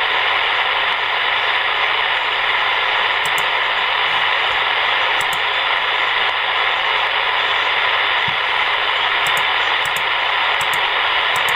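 Shortwave receiver on the 20-meter amateur band giving out a steady hiss of band noise and static, with no voice on the frequency.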